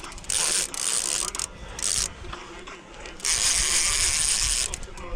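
Fishing reel clicking and ratcheting in short bursts, with one longer run of about a second and a half near the end, as line is worked during a fight with a striped bass.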